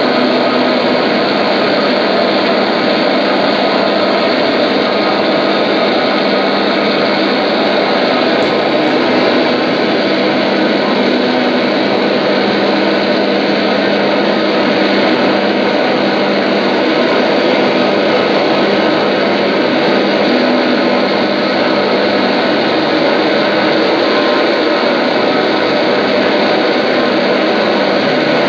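Noise music: a loud, dense, unchanging drone of amplified noise, with a single brief click about eight seconds in.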